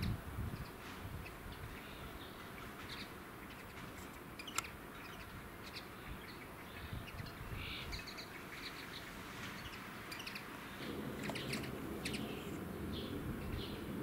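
Small songbirds chirping and singing in short, scattered notes. A sharp click sounds about four and a half seconds in, and a low rumble comes in at about eleven seconds.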